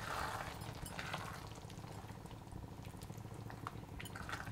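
Thick, milky pasta sauce simmering and bubbling in a pan while a spatula stirs through it, busiest in the first second with small scrapes and clicks scattered after.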